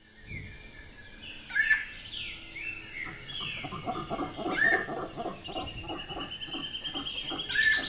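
Field recording of Misiones subtropical rainforest: many birds calling at once, with falling whistles, a loud upslurred call about every three seconds, and a fast trill near the end.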